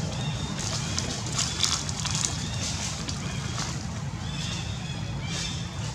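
Infant long-tailed macaque giving short high-pitched squeaks several times, over a steady low rumble and scattered rustling crackles.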